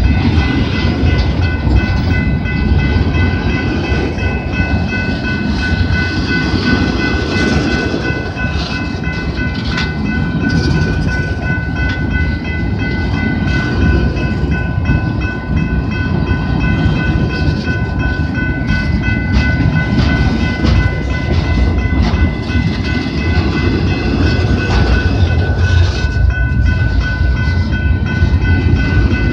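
Empty double-stack intermodal well cars of a freight train rolling past: a loud, steady rumble and clatter of steel wheels on the rails, with a steady high ringing tone running through it.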